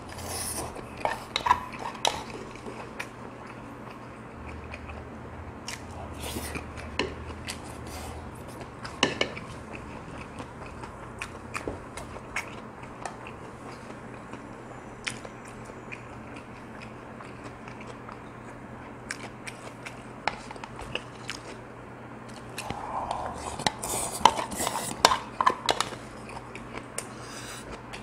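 Close-up eating sounds: a spoon clinking and scraping against a stainless steel mixing bowl and a small serving bowl, with chewing of mixed rice bibimbap. The clinks come in clusters near the start, around six to nine seconds in, and most densely between about 23 and 26 seconds.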